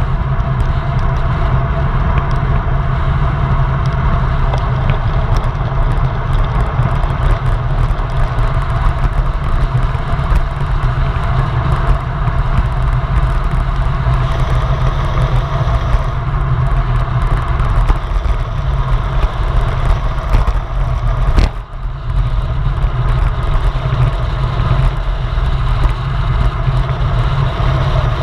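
Steady wind rush on the microphone and tyre roar of a road bike descending fast on asphalt, recorded from a handlebar-mounted camera. A brief knock about 21 seconds in.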